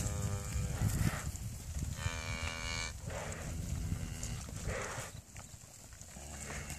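Cattle mooing: a short, fainter moo at the start and a louder moo about two seconds in that lasts about a second.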